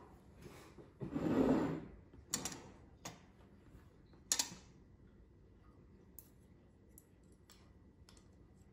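Metal cutlery clicking against a ceramic plate and against each other as a fork and spoons are picked up: a few sharp clicks between about two and five seconds in, then fainter ticks. Just before the clicks, a soft rustle or scrape lasting about a second.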